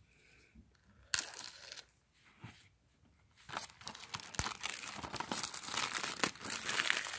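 Clear plastic shrink wrap on a DVD case being picked at and torn off by hand, crinkling. A short burst about a second in, then steady, denser crinkling from about halfway.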